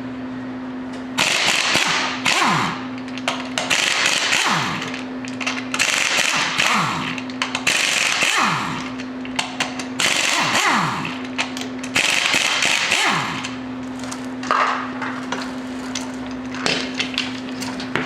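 Impact wrench hammering off wheel lug nuts in repeated bursts of a second or two each, each burst ending with a tone that falls in pitch as the tool stops. A steady hum runs underneath between the bursts.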